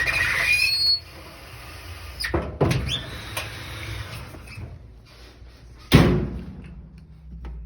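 Clunks and knocks of a clothes dryer being handled, likely its door being worked. There is a short squeak in the first second and a loud thump about six seconds in.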